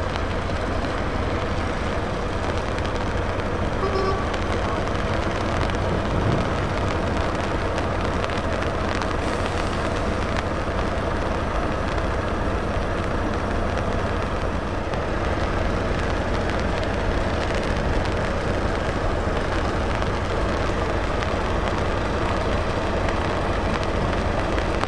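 Heavy trucks, Volvo FH and Scania tractor units, running in a slow queue: a steady, unbroken diesel rumble with no revving, with a brief high tone about four seconds in.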